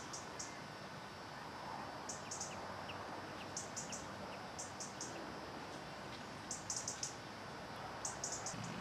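Short, very high bird chirps in quick groups of two or three, repeating every second or two, over a steady background hiss.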